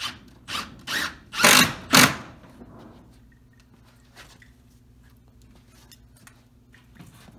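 Cordless drill driving a screw at an angle into a wooden frame piece, run in several short spurts over the first two seconds, the last two longest and loudest. After that only a faint steady hum and a couple of light clicks.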